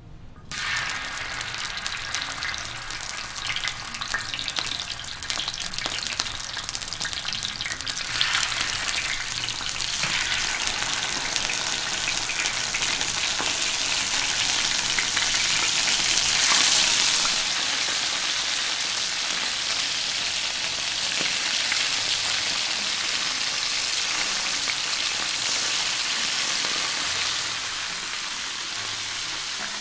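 Pieces of marinated, starch-coated snakehead fish frying in hot tea oil in a large wok: a sizzle with crackles that starts suddenly about half a second in as the first pieces go in, grows louder as more are added, and eases a little in the last few seconds.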